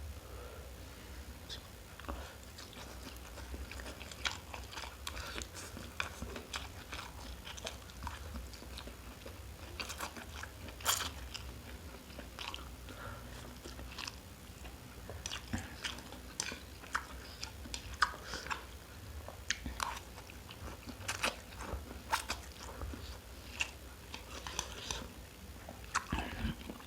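Close-miked eating: a person chewing and biting food, with many irregular small crunchy clicks and smacks.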